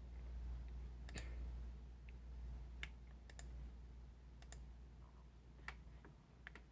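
Scattered single clicks from the MacBook being operated, about eight, spaced irregularly, over a faint low steady hum.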